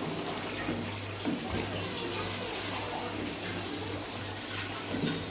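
Thick mutton karahi masala sizzling and bubbling steadily in an aluminium pot as a wooden spoon stirs it, with a few faint knocks of the spoon. The tomato water has almost cooked off. A low steady hum runs underneath.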